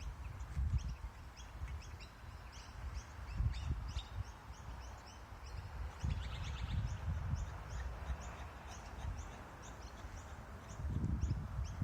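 Kangaroo making low clucking calls in short irregular bouts, probably a male's courtship call. Short high calls tick steadily above it.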